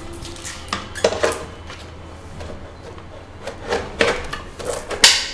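Plastic parts of a BenQ GL2450H monitor stand being handled and pushed together: a series of knocks and clicks, the loudest a sharp snap near the end as the clip-on stand locks into place.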